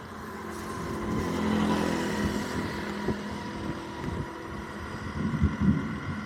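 A motor vehicle's engine passes by, swelling to a peak about two seconds in and then fading. Irregular low thuds follow near the end.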